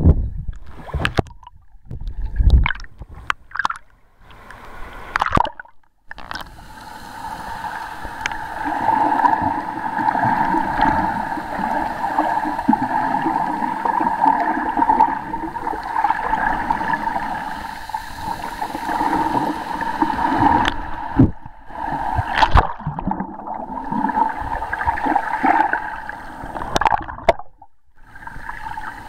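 Water heard through an underwater camera: muffled sloshing and gurgling, uneven and gusty in the first few seconds, then a steadier hum for a long middle stretch, broken by a few short dropouts near the end.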